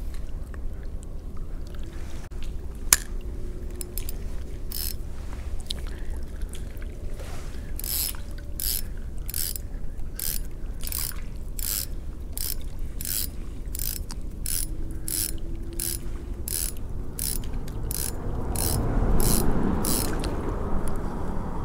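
Spinning reel clicking like a ratchet: a few scattered clicks at first, then an even run of about two to three clicks a second for some twelve seconds. Near the end a louder rustle of handling covers it.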